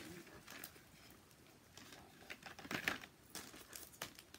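Packaged sticker sheets being handled and sorted: crinkling and rustling of the plastic packaging with a few light taps, loudest about three seconds in.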